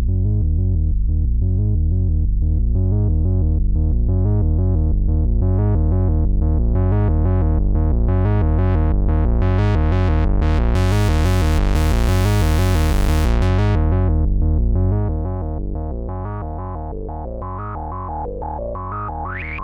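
u-he RePro software synthesizer, an emulation of the Sequential Circuits Pro-One, playing a fast sequenced bass pattern. Its filter opens steadily until the sound is bright and buzzy around twelve seconds in, then closes, and the level drops at about fifteen seconds. Near the end a rising pitched sweep comes in.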